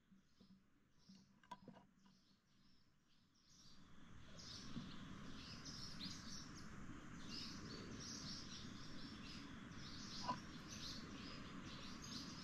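Birds chirping repeatedly over a steady background hiss that grows louder about three and a half seconds in.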